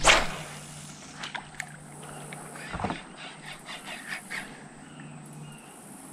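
A sharp knock at the start, then scattered light clicks and another thump about three seconds in, over a steady low hum that stops near the end: handling noise aboard a small fishing boat.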